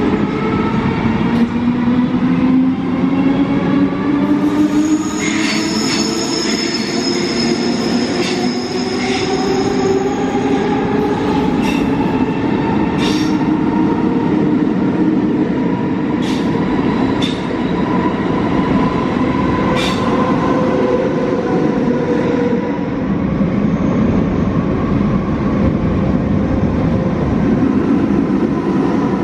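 SBB double-deck S-Bahn train accelerating out of an underground platform: the electric traction motors whine and rise in pitch, a high wheel squeal sounds between about five and ten seconds in, and a few sharp clicks follow before it settles into a steady rumbling run. Near the end a second train moves along the far track.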